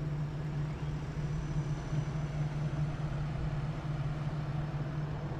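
Vehicle engine running steadily: a low, even hum with no change in pitch or level.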